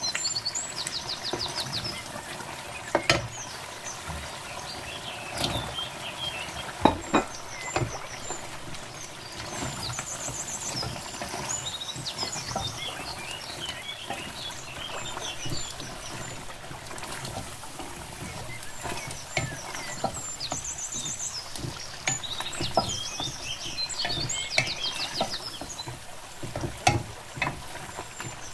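Wooden spoon stirring chicken and potato chunks through a thick simmering tomato masala in an aluminium pot: a steady sizzle and bubble, with now and then a sharp knock of the spoon against the pot. Short high chirps come and go in the background.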